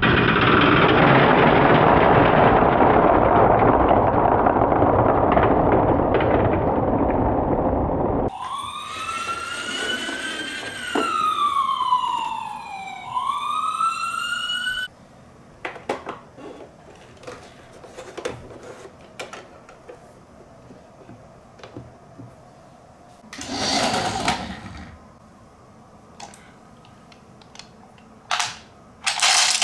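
A toy bingo machine's dial being cranked, its balls churning with a loud rattling hiss for about eight seconds. Then a toy ambulance's electronic siren wails, gliding up and down for about six seconds. After that come scattered clicks of plastic marbles and toys being handled, with a short rattle about two thirds of the way through.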